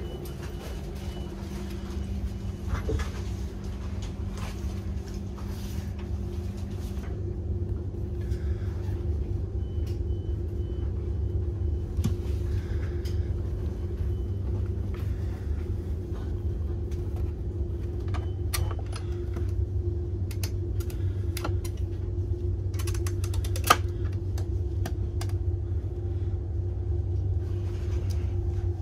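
Steady low hum inside a Siemens Viaggio Comfort railway passenger coach standing at a station platform, with scattered small clicks and knocks and one sharper knock about twenty-four seconds in.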